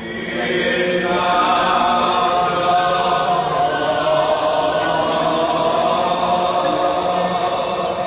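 Group of voices singing a slow Javanese classical chant in unison, with long held notes. The singing comes in about half a second in and swells to full strength by about a second.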